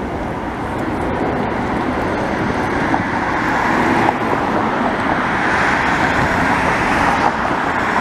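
Road traffic noise that builds steadily for about six seconds and then eases off near the end.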